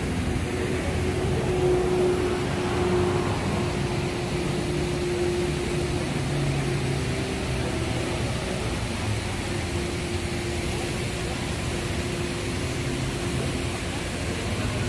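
Steady city traffic noise: an even rush of passing vehicles with a faint low hum that comes and goes.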